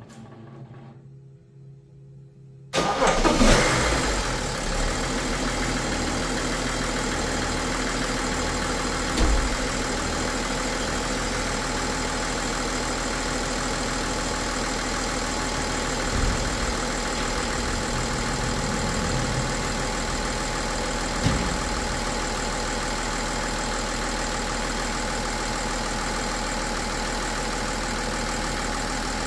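BMW M57 straight-six turbo-diesel starting on its first start after the swirl flaps were removed and blanked and the intake manifold refitted. It catches abruptly about three seconds in, runs up briefly, then settles into a steady idle with a few short louder bumps.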